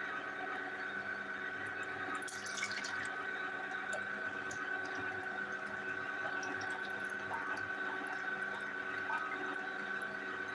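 Vertical slow juicer's motor running with a steady hum while juice pours and drips from its spout into a plastic jug, with a few clicks about two seconds in.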